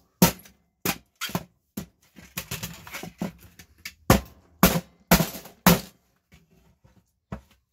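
Sharp knocks and clacks of a Wi-Fi router's hard plastic case being worked apart with hand tools on a wooden bench. The loudest are four knocks about half a second apart around the middle, then they thin out.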